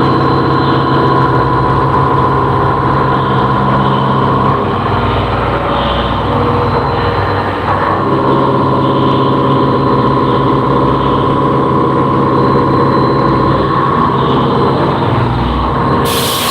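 CNC vertical machining centre running while cutting a part: a steady machine drone with a held whine that drops out from about four and a half to eight seconds in, then returns. Near the end the sound changes abruptly to a brighter hiss.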